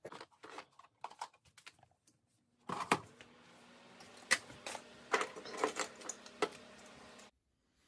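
Small hand tools and hard plastic boxes clicking and clattering as they are picked up and moved off a workbench, with scattered sharp knocks. A faint steady hum runs under the second half and cuts off suddenly near the end.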